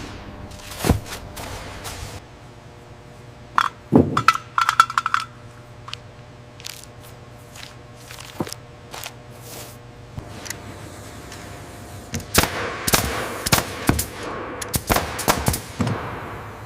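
A series of sharp knocks and metallic clanks at irregular intervals. A few ring briefly about four seconds in, and a dense run of quick hits follows from about twelve seconds in.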